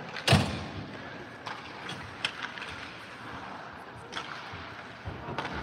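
Hockey sticks and pucks cracking on the ice and boards, echoing through an empty arena. One loud crack comes near the start, followed by several lighter clacks, over a steady hiss of skates on the ice.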